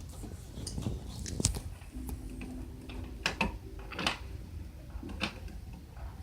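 Scattered small clicks and rustles of a plastic wire nut being twisted onto electrical wires and the wires being handled and tugged.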